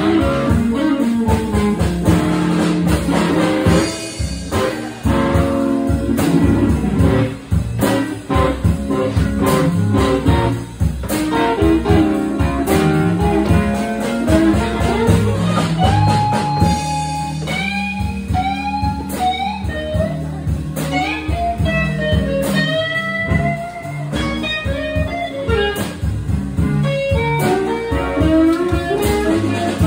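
Live blues band playing: electric guitars over bass and drums. From about halfway through, a lead guitar plays a solo line of bent, sliding notes.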